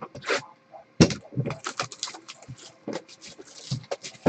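Cardboard and packaging handled as a trading-card box is opened and its pack taken out, crinkling and scraping in a string of irregular short clicks.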